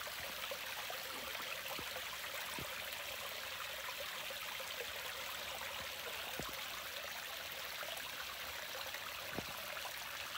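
Shallow mountain stream running low, trickling and babbling steadily over rocks and small ledges.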